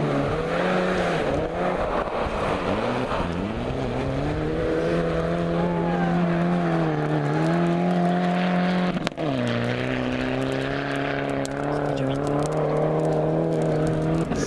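Rally car engine running hard, its revs dipping and climbing in the first few seconds, then holding high. About nine seconds in the pitch drops suddenly on an upshift, and the note then holds steady as the car pulls away.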